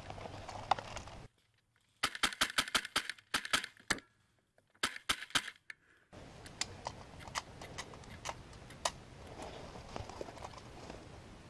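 Airsoft gunfire: several rapid bursts of sharp snapping shots over about four seconds, with near silence between the volleys. Before and after them there is only faint outdoor ambience with scattered light ticks.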